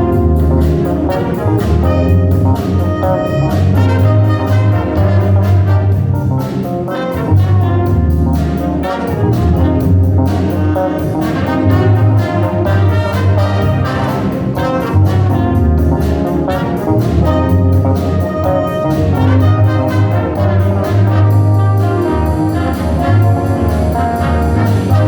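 Brass-led band playing a jazz number: trumpets and trombones over a bass line and a steady drum beat.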